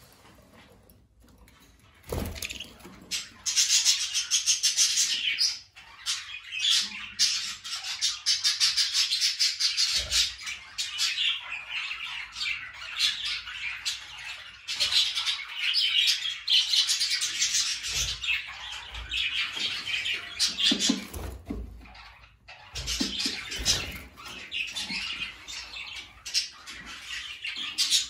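Budgerigars chattering and warbling, a fast run of chirps that starts about two seconds in and goes on with short breaks. A few dull knocks sound among it.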